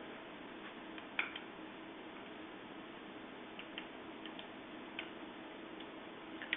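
A few faint, scattered metal clicks and ticks from the handlebar clamp and its bolts being handled and threaded in by hand. The clearest click comes about a second in, over a faint steady hum.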